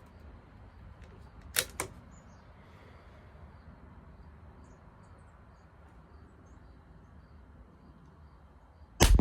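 A single rifle shot near the end, sudden and loud, with a short echoing tail. Two sharp clicks come earlier, less than a second apart.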